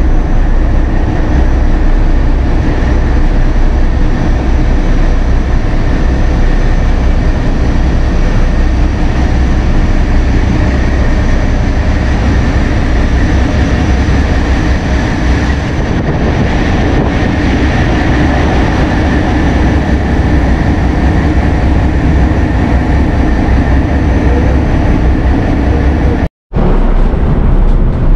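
Loud, steady drone of a ferry's engine room machinery: the diesel engines and generators running, a deep hum with steady tones above it. The sound cuts out for a split second near the end.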